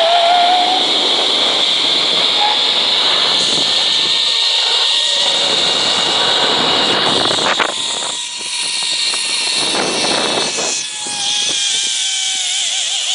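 Zipline trolley pulleys running along the steel cable during a descent, a steady high whine mixed with wind rushing over the microphone. A tone in it rises in pitch in the first second, and the sound eases somewhat after about eight seconds.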